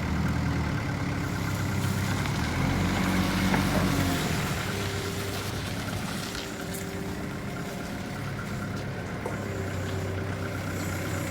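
Truck engine running steadily with a low hum, a few short higher tones coming and going over it.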